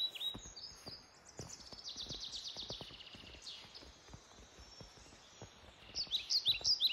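Songbirds singing: a fast trill of high repeated notes about two seconds in, then a run of short high down-slurred notes near the end. Under them, faint evenly spaced footsteps of hikers walking.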